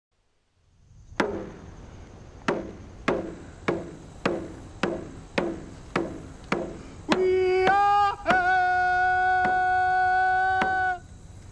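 A hide frame hand drum struck with a padded beater, a single stroke and then a steady beat of about two strokes a second. About seven seconds in, a man's voice begins singing over the drum and holds one long note.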